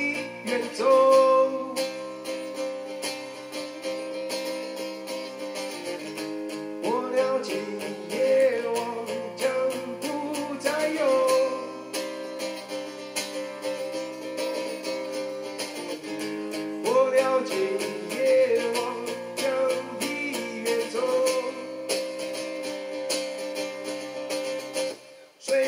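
Acoustic guitar playing an instrumental interlude of strummed chords and picked melody notes. It breaks off briefly just before the end.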